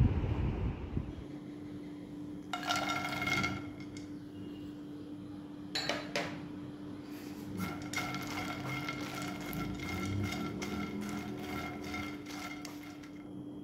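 A spatula stirs fox nuts (makhana) dry-roasting in a nonstick frying pan, making a fast run of light scrapes and clicks against the pan for several seconds in the second half. Earlier come a short clatter and a couple of knocks on the pan.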